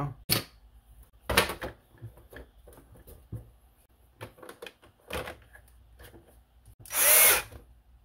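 Scattered light plastic clicks and knocks as the robot vacuum's bottom cover and parts are handled and seated, then a short burst of a low-torque cordless drill running about seven seconds in.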